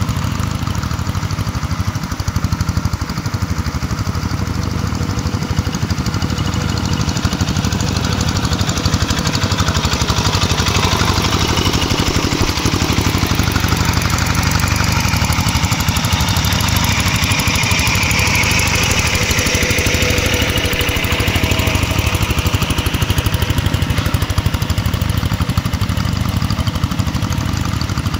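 Single-cylinder diesel engine of a two-wheel hand tractor running steadily under load while ploughing, with a fast even chug; it sounds brighter in the middle of the stretch, when it passes closest.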